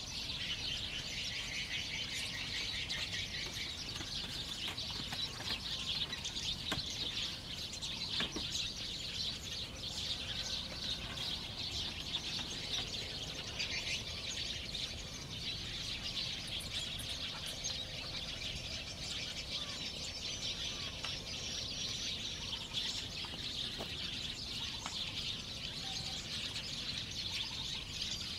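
A dense, continuous chorus of birds chirping and calling, with a couple of faint knocks about seven and eight seconds in.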